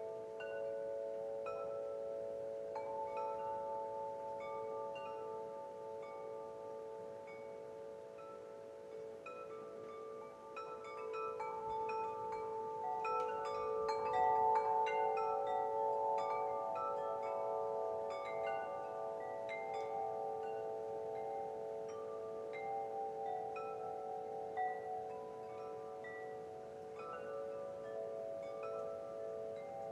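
Wind chimes ringing: several long overlapping tones with scattered higher notes struck over them, growing busier and louder about halfway through.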